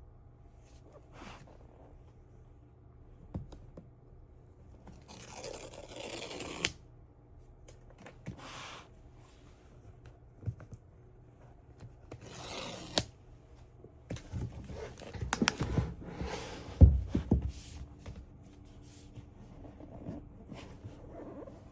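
A laptop's cardboard and paper packaging being torn open and handled. There are several stretches of tearing and scraping, the longest about five seconds in, with a few sharp knocks of the box and its contents.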